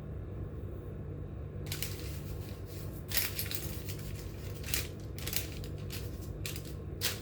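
A series of short scraping, rustling strokes, seven or eight of them starting about two seconds in, as shortbread cookies are cut from rolled dough with a flower-shaped cutter and handled onto a tray. A steady low hum runs underneath.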